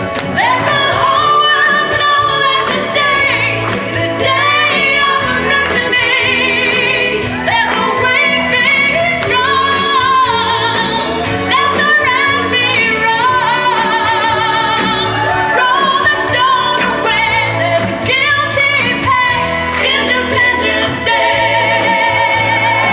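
A woman singing a solo vocal into a handheld microphone over musical accompaniment, with vibrato on the long held notes.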